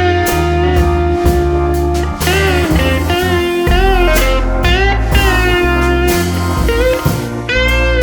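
Background music: an instrumental track with a lead guitar playing bending, gliding notes over a low bass line.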